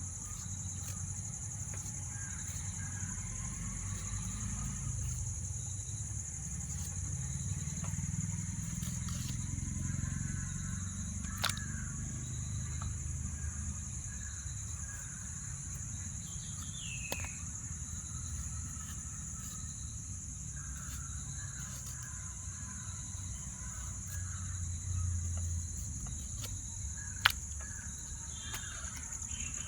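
Outdoor rural ambience: birds chirping now and then over a steady high hiss and a low rumble, with a few sharp clicks, the loudest one near the end.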